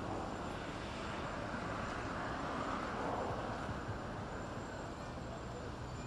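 Street traffic noise: a steady rumble and hiss of passing vehicles, swelling as one goes by about two to three seconds in.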